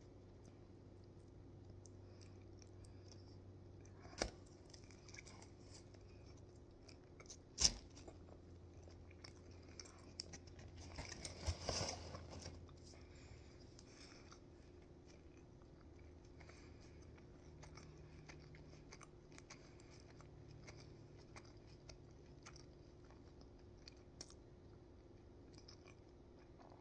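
Faint chewing of a mouthful of Philly cheesesteak sandwich. Two sharp clicks come in the first third, and a short rustling burst comes near the middle.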